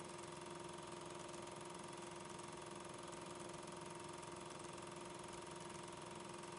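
Steady mechanical hum with hiss: two fixed tones over an even noise, unchanging throughout.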